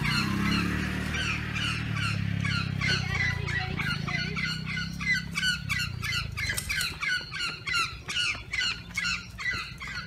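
Birds giving a fast, even series of short squawking calls, about three a second at first and quickening to about four a second in the second half.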